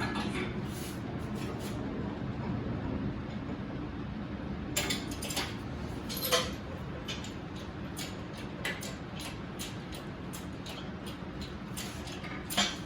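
Irregular light metallic clinks and knocks from rigging and lifting an engine with a shop engine hoist, over steady background noise. The knocks come more often from about five seconds in, with the sharpest near the middle and near the end.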